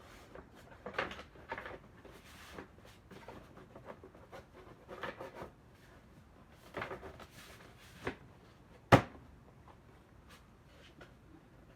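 Parts and fasteners being handled and fitted back onto a car engine: scattered clicks and light rattles, with one sharp knock about nine seconds in.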